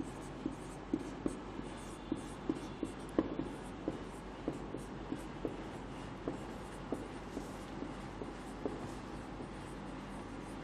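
Marker pen writing on a whiteboard: an irregular run of short taps and scratches, several a second, as the letters are stroked out.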